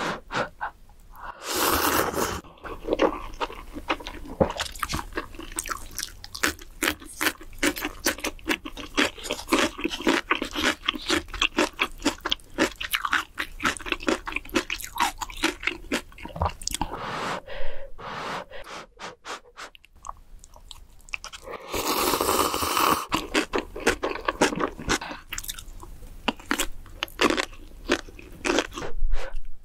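Close-miked eating sounds: instant cup noodles slurped in two long, loud pulls, about two seconds in and again about twenty-two seconds in, with rapid wet chewing and mouth clicks between and after them.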